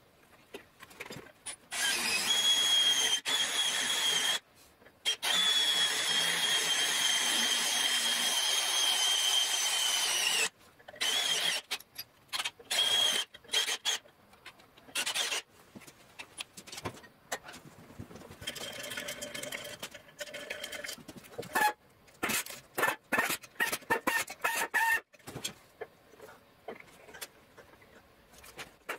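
Cordless drill boring through the steel hub of a PTO sheave and its shaft adapter for a bolt, the bit squealing in the metal. It runs steadily for about eight seconds with a high whine that slowly drops in pitch, then in short bursts.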